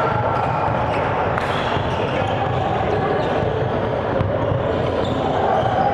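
Basketball being dribbled on a hardwood gym court during a game, short bounces over the steady, echoing din of the gym and players' voices.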